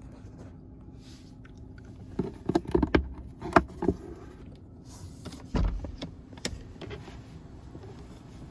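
Plastic dashboard trim pieces of a 2012 Hyundai Sonata clicking and knocking as they are twisted loose and handled: a quick run of sharp clacks about two to four seconds in, then a heavier thump and one more click.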